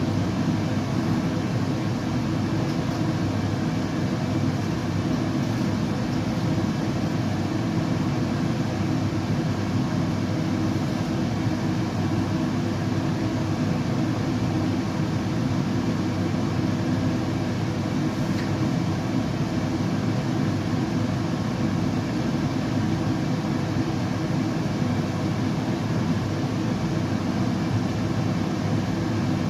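Steady white noise with a deep, low rumble, even and unchanging, like a constant engine or cabin drone.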